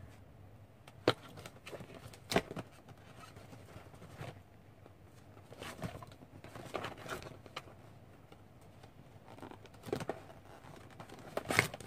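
Cardboard product box being handled and turned over by hand: scattered taps, knocks and rubbing on the carton, with two sharp knocks in the first few seconds and small clusters of handling noise later.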